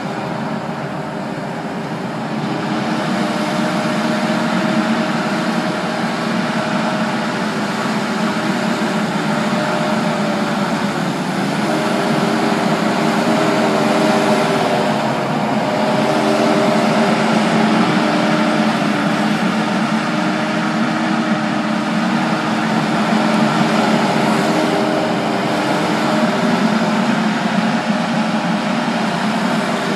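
Kubota SVL75 compact track loader's diesel engine running under load while the machine pushes into and backs out of a mulch pile, its engine note shifting up and down as it works.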